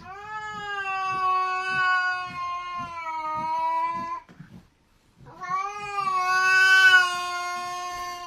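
A cat yowling: two long, drawn-out calls, each holding a nearly steady pitch for three to four seconds, the second beginning about a second after the first ends.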